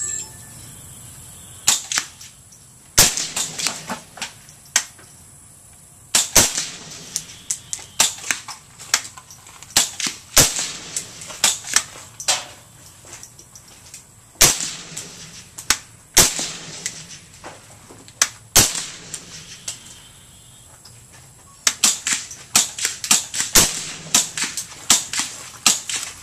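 Suppressed rifle shots from a 5.56mm Bushmaster ACR carbine fitted with an AAC M4-2000 suppressor, fired one at a time every few seconds, then a quicker string of shots near the end. Fainter cracks and clicks fall between the shots.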